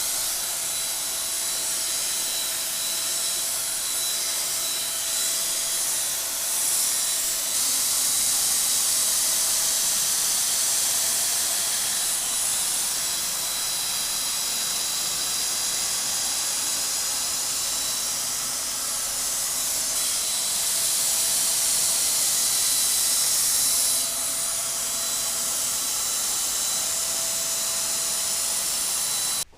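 A power tool running steadily with a loud hiss and a thin, high whine. It gets a little louder for a stretch in the middle, then settles back.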